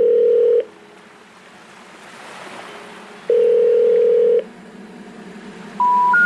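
Electronic telephone-style tones: two long steady beeps about three seconds apart, with a faint hiss between them, then three short beeps rising in pitch, one after another, near the end.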